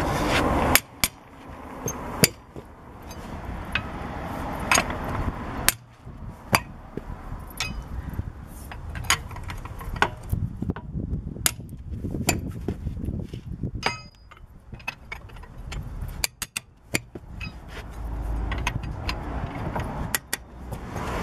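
A hammer striking a lug wrench fitted on a wheel bolt, giving a string of irregular sharp metallic knocks and clinks, to break the wheel bolts loose. Between strikes the wrench clinks and rattles in the bolt as it is turned.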